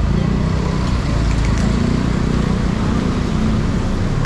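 Steady low rumble of an idling vehicle engine, with street traffic around it.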